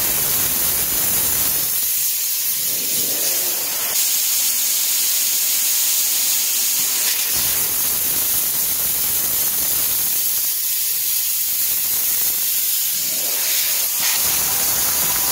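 Compressed air hissing steadily out of a semi-truck tire through its valve stem with the valve core pulled, deflating the tire so it can be taken off the rim.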